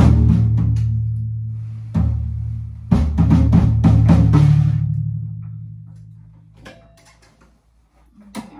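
Acoustic drum kit with cymbals: a few hits with cymbal crashes, then a quick run of strokes about three to four seconds in. After that the drums ring out and die away, leaving only a few faint clicks before one more hit near the end.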